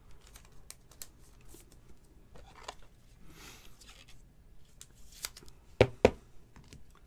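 Trading card being handled in a plastic penny sleeve and top loader: faint rustling and light plastic clicks, then two sharp clacks a moment apart near the end.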